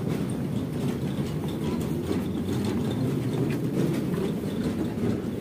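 A steady low rumbling background noise with faint scattered ticks, no one sound standing out.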